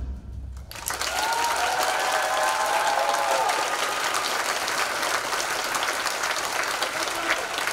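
Theatre audience applauding, the clapping swelling in about a second in, just after the drumming stops.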